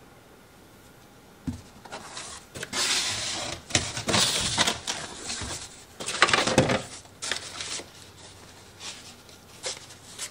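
Cardboard packing inserts scraping and rustling as they are pulled out of a large shipping carton, in several bursts, with a single knock about a second and a half in.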